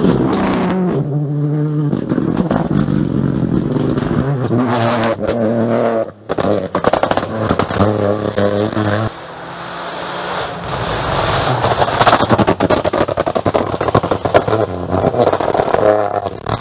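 Rally car engine at full throttle, its pitch climbing and dropping in steps through gear changes. From about nine seconds in it turns into a rough, rasping rush that grows louder as the car comes closer.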